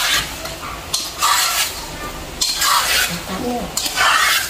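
Hand mixing marinated whole climbing perch in a pot, a wet scraping squish about every second and a half, four strokes.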